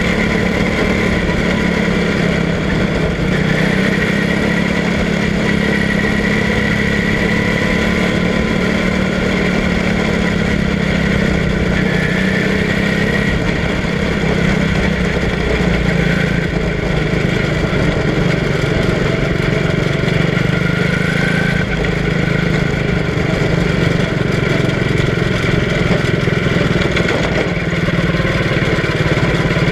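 Quarter midget race car's single-cylinder engine running steadily on track, heard close from on board the car, its pitch holding nearly even throughout.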